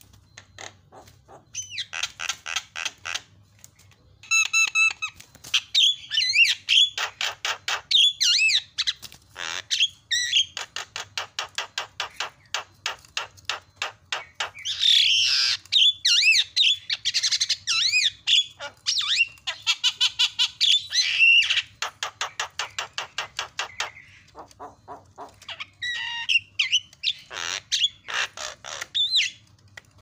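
Javan myna (jalak kebo) singing a long, varied song of rapid chattering trills, whistled glides and harsh squawks, with mimicked notes (isian) mixed in and a few short pauses.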